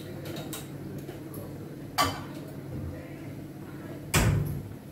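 Kitchen utensils knocking twice: a sharp clink about two seconds in and a heavier knock near the end, over a steady low hum.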